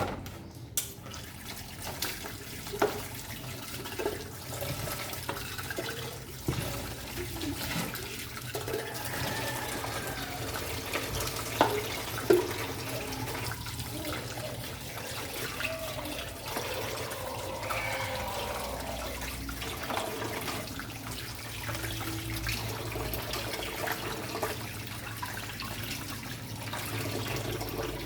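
Tap water running steadily into a sink while baby feeding-bottle parts are rinsed, with scattered knocks and clinks of the parts against the sink.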